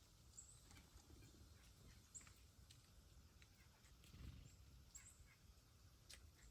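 Near silence with a few faint, short, high-pitched chirps of small wild birds scattered through it, and a couple of faint clicks.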